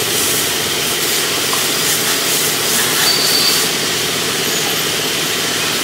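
Pressure washer spraying water onto a foam-covered car body: a steady hiss of spray.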